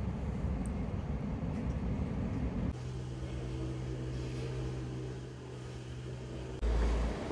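Low, steady rumble of a moving train heard inside the carriage. It changes abruptly about 2.7 s in to a steady low electric hum. Near the end comes a sudden loud low buffeting, like wind on the microphone.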